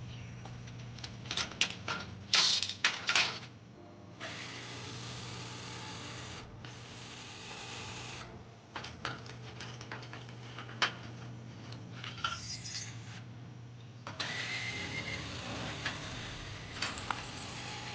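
Aluminum storm door being taken apart with tools: sharp metallic clanks and clicks, loudest a couple of seconds in and again in a cluster later, between stretches of steady rasping noise a couple of seconds long.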